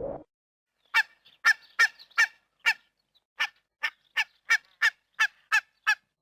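Goose honking: about thirteen short, nasal honks, two to three a second, with a brief pause midway.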